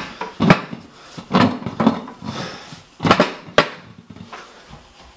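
Workshop handling noises: about five knocks and clatters as the motorcycle wheel and tools are moved about on a wooden workbench, dying away near the end.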